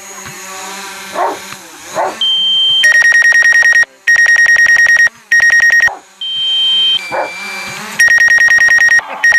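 Drone remote controller's low-battery alarm: a high two-note chime, then repeated runs of fast electronic beeping, about ten beeps a second in bursts of roughly a second, signalling the battery is critically low and the drone must land. A few short rising yelps come in between the beeps.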